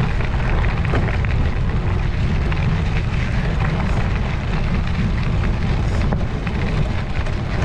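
Steady low rumble of wind buffeting the microphone, with faint scattered ticks through it.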